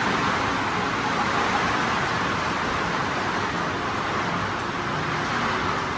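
Steady, unchanging noise of a vehicle driving.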